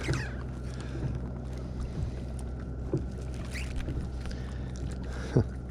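A boat's motor humming steadily, with a few short knocks and clicks, the loudest near the end.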